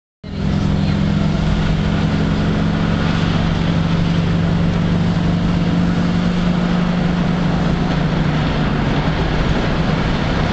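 Car driving along a road, heard from inside the cabin: a steady low engine hum under constant tyre and road noise.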